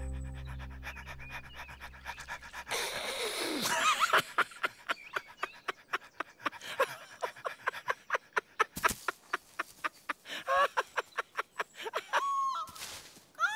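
Cartoon dog panting quickly and rhythmically in short, even breaths.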